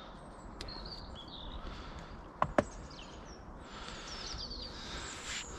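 Small birds chirping and twittering faintly over a steady outdoor background hiss, with two sharp clicks close together about two and a half seconds in.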